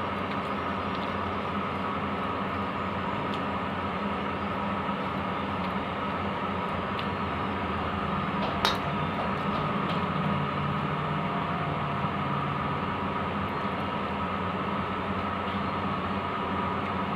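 A steady mechanical hum and hiss with no pauses, and one sharp click about nine seconds in.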